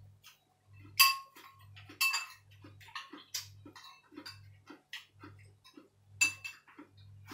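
Metal spoon clinking against a ceramic bowl as noodles are stirred and scooped: a handful of sharp clinks, each with a short ring, among quieter scrapes and taps.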